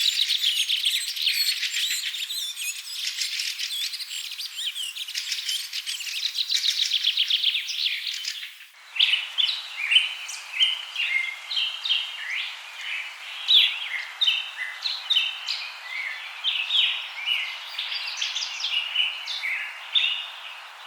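Several songbirds singing: a dense chorus of rapid trills, then after an abrupt change about nine seconds in, separate short chirps and whistles.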